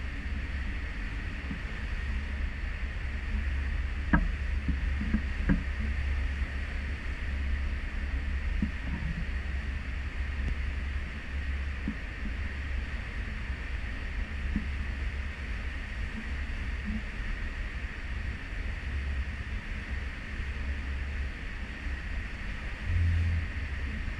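A cruise ship underway at sea, heard from its stern: a steady, gusting low rumble of wind on the microphone and ship noise, with a hiss of wake water over it. A few faint knocks come about four to six seconds in, and a short louder bump near the end.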